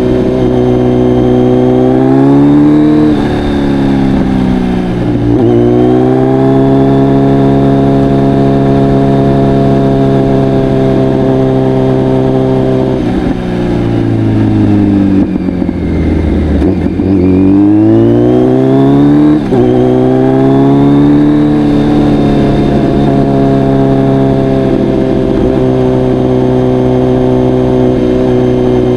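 Kawasaki Z900's inline-four engine running through a full Akrapovic exhaust while ridden, mostly holding a steady note. The pitch climbs and dips briefly near the start as it accelerates and shifts, falls away about halfway through as the bike slows, then rises again as it picks up speed.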